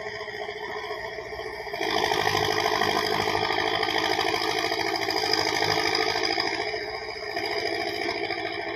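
Hydraulic excavator's diesel engine running steadily, then revving up under load about two seconds in as the arm works through brush. It eases back slightly near the end.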